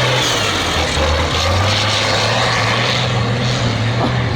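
Off-road three-wheeler's engine running hard under throttle with a steady drone; the pitch dips briefly about a second in, then picks back up.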